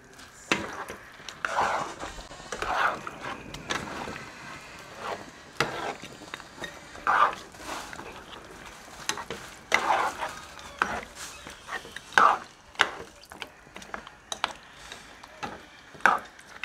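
A metal spoon stirring and scraping through thick oxtail stew with broad beans in a large frying pan, giving irregular clinks and scrapes against the pan.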